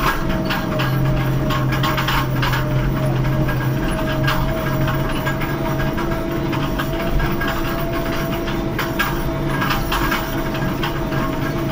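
New Holland TD110 tractor's diesel engine running steadily under load while pulling a cultivator, heard from inside the cab, with frequent short rattling knocks over the engine's hum.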